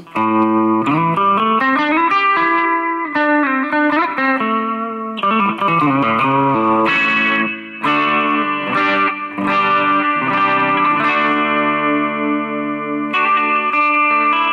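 Electric guitar, a Chinese-made Ibanez Jem7V-style guitar played on its bridge pickup (selector position 1): a quick picked phrase with slides and bends, then chords struck about once a second and left ringing.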